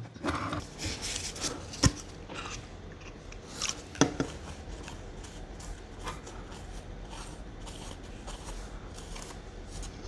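Old thermal paste being wiped off a mini PC's processor with a tissue: soft rubbing and rustling, with two sharp clicks in the first few seconds.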